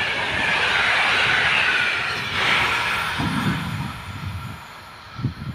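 Locomotive-hauled passenger train's coaches rolling past on the rails, a steady rush of wheel and rail noise with a whine that falls in pitch. The noise fades away over the last couple of seconds as the train recedes.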